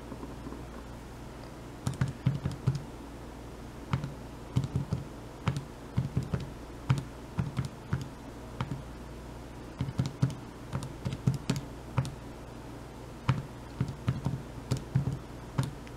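Calculator keys being pressed to add up a column of figures: an irregular run of short taps in quick clusters, starting about two seconds in.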